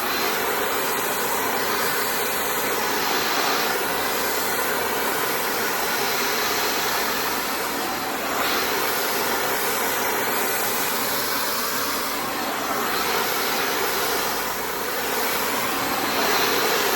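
High-speed brushless hair dryer with a nozzle fitted, running steadily: a rush of air with a thin steady whine, swelling and fading every few seconds.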